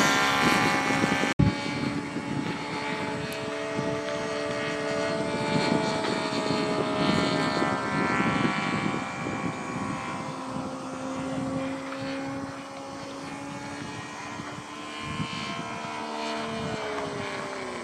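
Radio-controlled model airplane's motor and propeller droning in the air, its pitch drifting slowly up and down as the plane manoeuvres and changes distance. A sharp break cuts the sound about a second and a half in.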